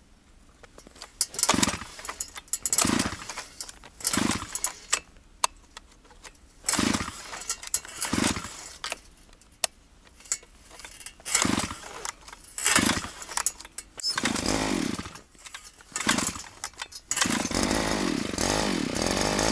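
Chinese petrol ice auger's small two-stroke engine being pull-started over and over, hard to start in −30 °C cold: about ten short pulls, often in pairs. Near the end it catches and runs steadily.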